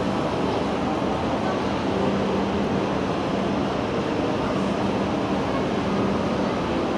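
Steady hum and rumble of a shinkansen station platform, with a constant low tone under it and faint voices of waiting passengers.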